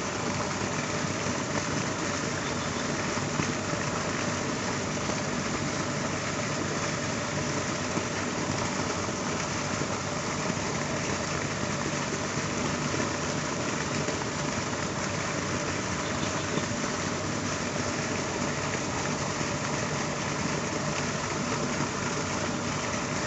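A steady machine hum, like an engine running at constant speed, over an even hiss, unchanging throughout.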